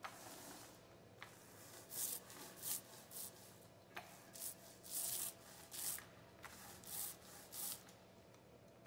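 Paint roller being rolled back and forth over a wooden bee box: a soft hiss with each pass, about ten short strokes.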